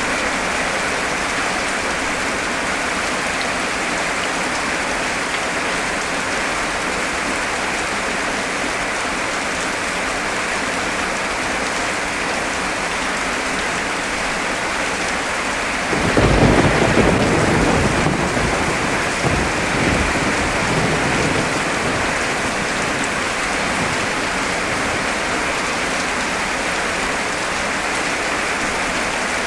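Heavy rain pouring steadily. About halfway through, a thunderclap breaks suddenly and rumbles away over several seconds.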